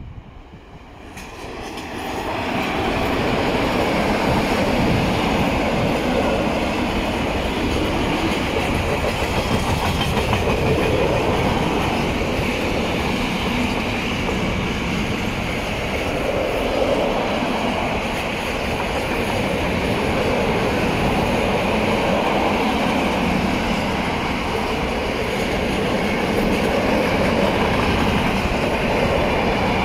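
A long freight train of open-top gondola wagons, hauled by an electric locomotive, passing close by. The sound rises sharply about two seconds in as the train reaches the spot, then holds as a loud, steady rumble and clatter of wagon wheels on the rails.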